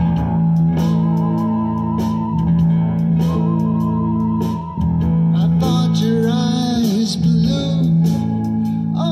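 A live band playing: sustained guitar chords over bass guitar, with a singing voice coming in briefly around the middle.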